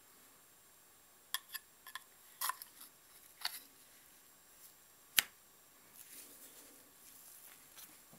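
Handling clicks and taps as a steel leather knife with a wooden handle is slid into its wild apricot wood sheath: a few light clicks, then one sharp louder click about five seconds in. Soft rustling of handling follows near the end as the sheathed knife is set down on wood.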